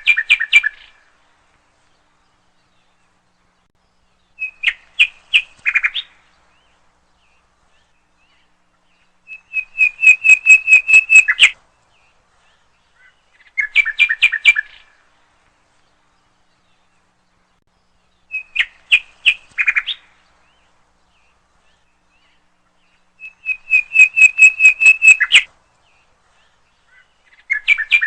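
Common nightingale singing: short phrases of fast repeated notes, each lasting one to two seconds, separated by pauses of two to three seconds.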